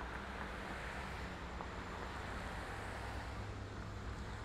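Diesel freight locomotive approaching at a distance: a steady low engine drone over a haze of wind and ambient noise.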